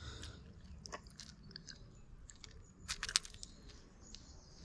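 Faint close handling noise: scattered sharp clicks and rustles, thickest around three seconds in, over a low steady rumble.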